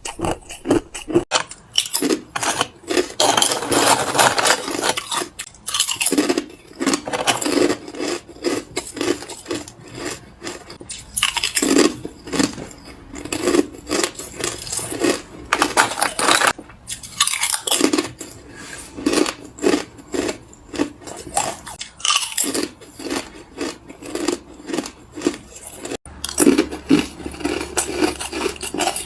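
Crunchy chip ice being bitten and chewed: quick runs of crisp crunches lasting several seconds each, with brief pauses between mouthfuls.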